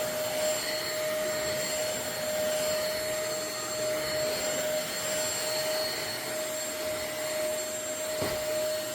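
Intercleaner corded stick vacuum's 400 W motor running steadily with good suction: a constant whine over the rush of drawn-in air.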